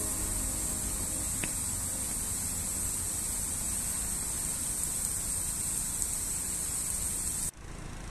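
Steady outdoor background noise: a low rumble under a high steady hiss, cut off abruptly about seven and a half seconds in.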